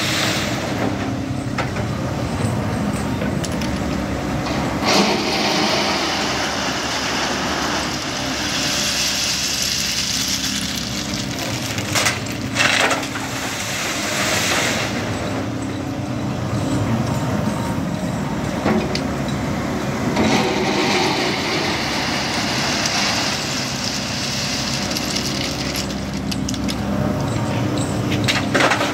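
SANY SY140C tracked excavator's diesel engine running under load, with a high hydraulic whine that swells in stretches as the boom and arm work. Crushed stone clatters from the bucket into the steel tipper body about twelve seconds in and again near the end.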